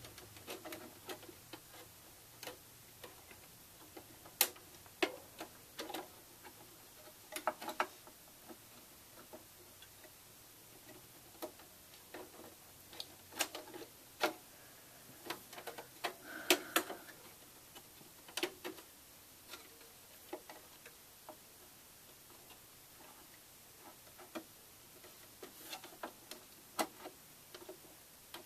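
Irregular small clicks, taps and scrapes of hands working a PCI Express expansion card and its metal bracket into a slot inside a Mac Pro's case, with a denser run of knocks about halfway through.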